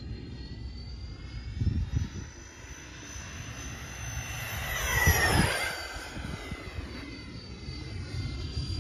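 The twin 80 mm electric ducted fans of a Freewing A-10 RC jet whine as the plane makes a pass. The sound grows louder and peaks about five seconds in, then drops in pitch as the jet goes by.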